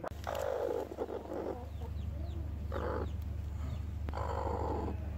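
A broody Aseel hen sitting on eggs gives three rasping calls: a longer one at the start, a short one about halfway, and another near the end, over a steady low hum.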